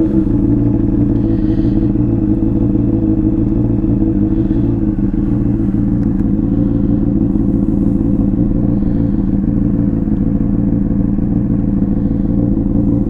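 Honda CBR600RR inline-four engine idling steadily through a Hotbodies Stinger slip-on exhaust.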